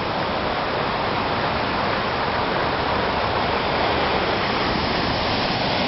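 Small man-made waterfall, about three metres high, with water pouring hard enough to foam white: a steady, even rush of water.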